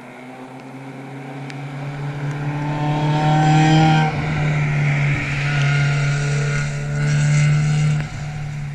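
Mazda Miata race car's four-cylinder engine pulling hard as the car approaches and passes, growing louder, then dropping off abruptly about four seconds in, pulling again, and dropping off abruptly once more near the end.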